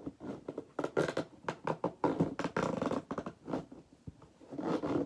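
Plastic fidget toys being handled: a quick, uneven run of clicks, crackles and rustling.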